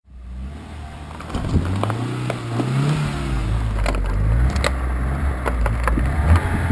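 Car engine running low as the car creeps forward on gravel, its pitch rising and falling once. Gravel crunches under the tyre, with a series of sharp cracks and pops as the wheel rolls onto a flat object lying on the stones.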